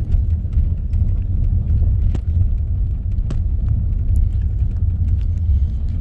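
Steady low rumble of a car driving, heard from inside the cabin, with a few sharp knocks, the clearest about two and three seconds in.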